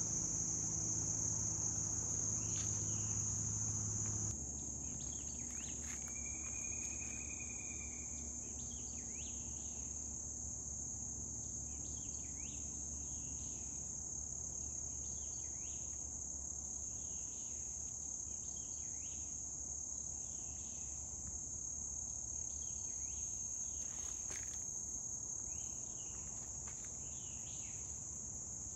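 Steady high-pitched chorus of insects, with many short bird chirps scattered over it.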